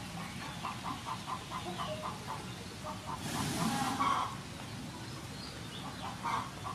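Chickens clucking, a quick run of short clucks about five a second over the first two seconds, with a brief louder noise about three seconds in.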